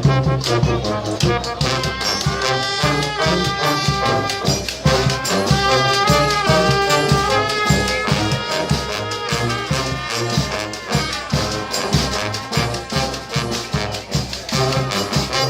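Brass band playing live: trumpets and trombones over low bass notes and a steady drum beat, with horn chords held through the middle.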